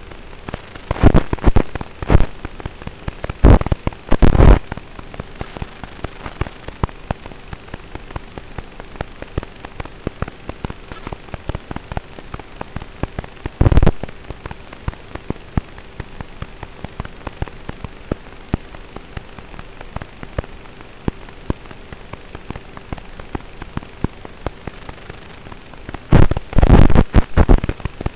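Analog FPV video-link audio: a steady hiss with a faint hum, broken by loud bursts of static crackle several times, in the first few seconds, once in the middle and again near the end, as the radio signal breaks up.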